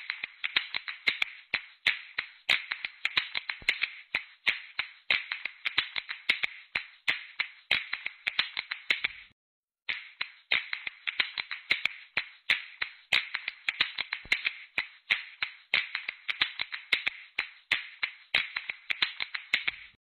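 A fast run of sharp clicks or slaps, several a second, over a steady hiss. It breaks off for a moment about nine seconds in, then resumes.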